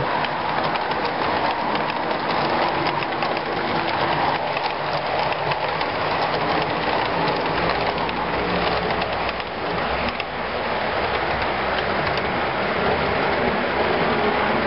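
HO scale model freight cars rolling past on the track: a steady rattling hiss of metal wheels on rail, with fine clicks as the wheels cross the rail joints.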